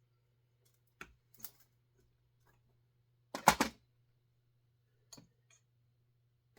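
A few sharp clicks and knocks of hand tools and small metal parts being handled while a chainsaw is taken apart, the loudest a short clatter about three and a half seconds in, over a faint low hum.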